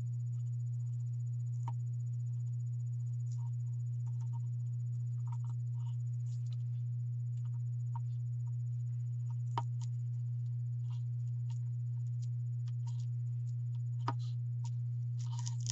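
A steady low hum runs under faint scattered clicks and soft rustles of hands pressing hot-glued fabric and twine around a wire ornament, with two slightly sharper ticks and a short rustle near the end.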